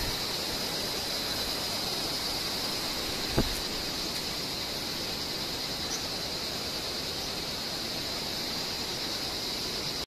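Steady outdoor night ambience: an even hiss with a steady high-pitched tone over it, and a single short knock about three and a half seconds in.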